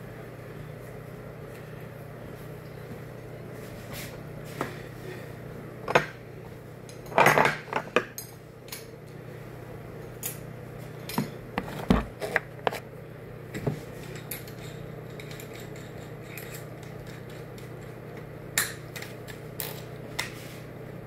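Scattered metallic clinks and knocks of hardware and tools being handled, with a quick run of them about seven seconds in and another around twelve seconds, over a steady low hum.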